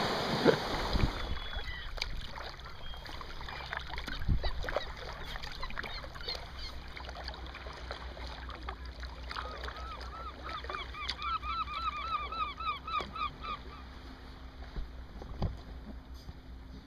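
A bird calls in a quick run of a dozen or so repeated, honking notes about two-thirds of the way in, over soft splashes and drips from a kayak paddle.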